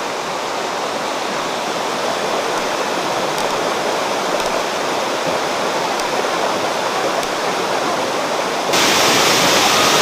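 Steady rush of water cascading over the rocks of the Riam Gerai falls and stream. About 8.7 s in it jumps suddenly louder and brighter, as the full waterfall plunges into its pool.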